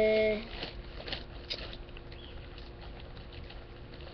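Faint light tapping and rustling of small plastic toy figurines being handled on a tabletop, after a short steady hummed 'mm' at the very start.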